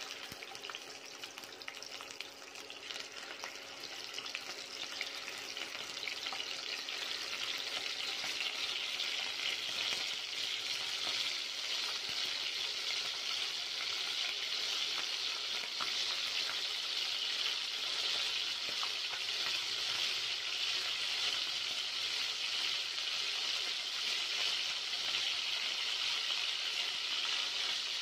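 Raw chicken pieces sizzling in hot oil in a frying pan, the sizzle growing louder over the first several seconds as more pieces go in, then holding steady.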